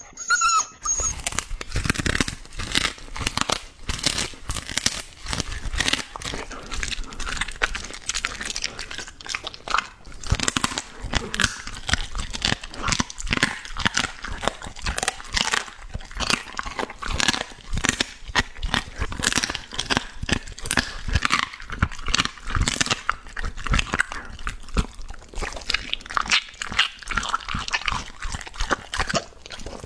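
Border collie biting and chewing chicken pieces fed from a hand, a dense run of crunchy bites and chewing. A brief whine right at the start.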